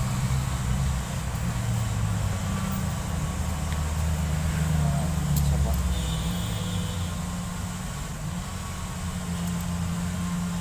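Steady low engine rumble, like a vehicle running at idle, with faint voices in the background.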